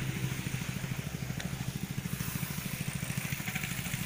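Engine-driven power sprayer of the car-wash kind running steadily under load while it pumps pesticide through a long hose to a spray lance. The engine gives a rapid, even pulsing.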